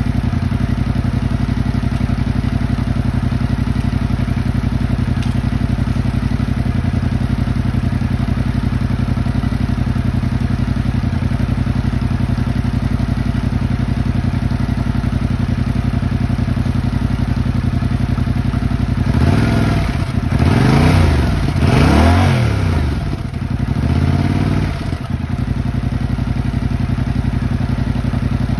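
Yamaha 689 cc CP2 crossplane parallel-twin motorcycle engine idling steadily through its stock exhaust while warming up after its first start following winter. About two-thirds of the way in, four quick throttle blips make the revs rise and fall, and then it settles back to idle.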